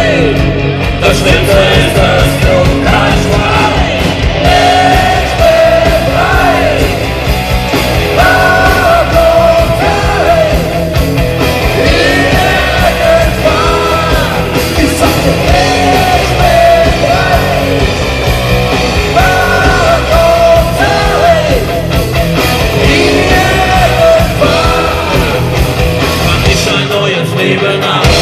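A loud rock band playing live, with a singer over guitars and a steady drum beat. The bass drops out briefly near the end.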